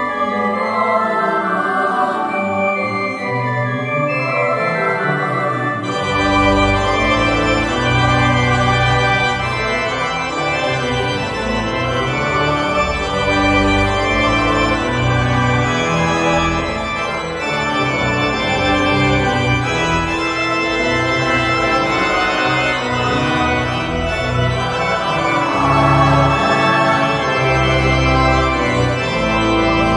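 Organ music: held chords that change in steps, with deep bass notes joining about six seconds in.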